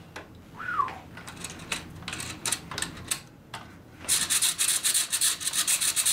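AR-15 lower receiver and buffer tube being handled on the bench: scattered small clicks and rubs with one short squeak that falls in pitch, then, about four seconds in, roughly two seconds of fast rasping rubbing.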